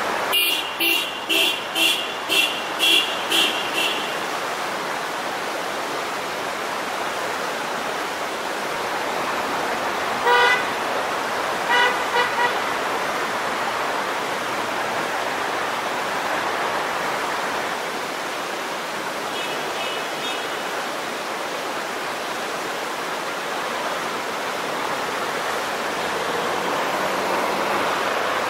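Car horns sounding at a blind, narrow corner as warning: a quick run of about eight short toots in the first four seconds, one longer honk and three short toots around ten to twelve seconds in, and faint beeps near twenty seconds. Under them is the steady rush of a fast-flowing creek.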